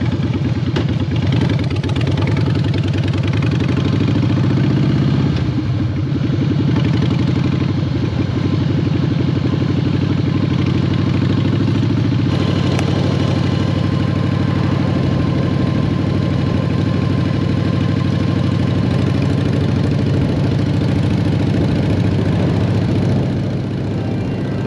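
Harley-Davidson Softail Standard's V-twin engine running steadily while the motorcycle is ridden, heard from the saddle.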